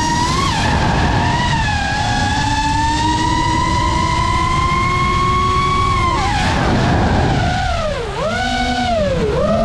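FPV quadcopter's brushless motors and propellers whining under throttle over a rush of wind, the pitch slowly climbing. Near the end the whine drops steeply and climbs back twice as the throttle is chopped and punched again.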